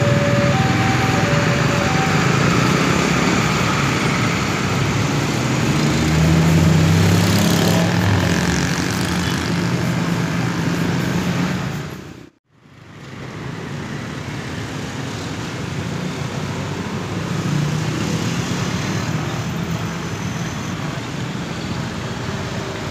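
Road traffic passing over a railway level crossing: the engines of a large bus and of motorcycles. The crossing's electronic alarm, two alternating tones, stops about two seconds in. The sound dips out briefly about halfway through.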